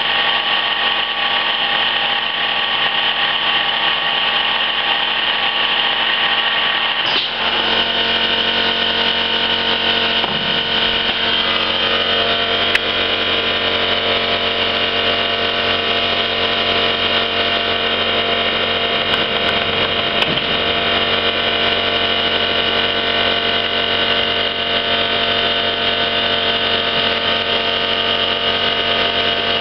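1974 EMI-MEC E Sprint plugboard automatic lathe running steadily through a test cycle, its motor and drive humming with several steady whining tones as the tooling cuts under flowing coolant. A brief click several seconds in, and another a few seconds later, each changes the machine's pitch as it moves to a new stage of the cycle. Its feeds are set slow for a first run after more than ten years standing idle.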